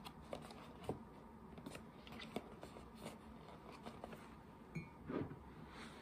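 Pages of a thick paperback book being turned and handled: faint paper rustles and light taps scattered through, the loudest about five seconds in.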